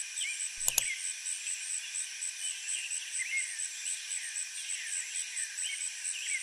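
Night-time insect ambience: crickets chirping steadily at about four chirps a second, with scattered short higher chirps over a constant high hiss. There is one light click just under a second in.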